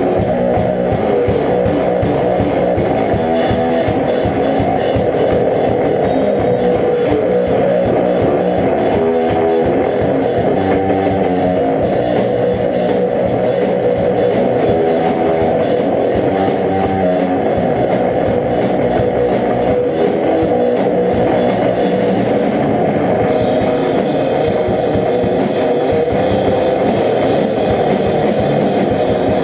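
Rock band playing a song: guitars and a drum kit, loud and continuous.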